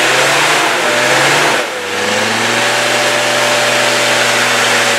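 Land Rover Discovery Td5's five-cylinder turbodiesel engine running hard under load as the truck climbs through a deep mud rut. The revs sag briefly about a second and a half in, then hold steady.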